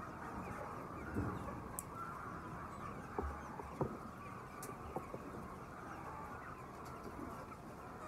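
A large flock of white chickens keeps up a steady din of overlapping clucks and calls. A few short sharp clicks or knocks stand out now and then.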